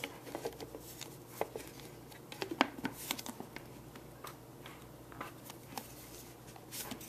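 Light plastic clicks and knocks as the lid of a Beaba Babycook steamer-blender bowl is handled and fitted into place, most of them clustered in the middle.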